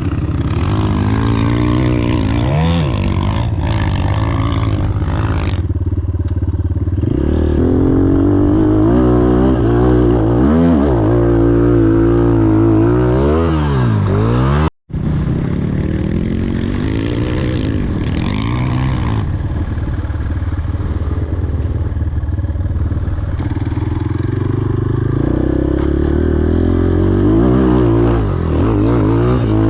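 250 cc enduro motorcycle engine under way off-road, its pitch repeatedly rising and falling as the throttle is opened and closed. The sound drops out for an instant about halfway through.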